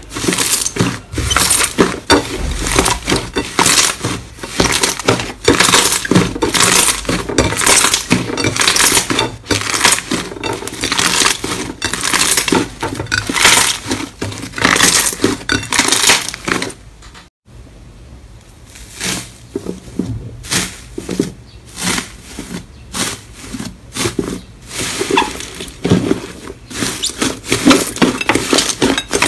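Slime being squeezed and pressed by hand: rapid wet crackling, popping and squelching as air pockets burst. The sound stops briefly about seventeen seconds in, then resumes with a second slime being kneaded.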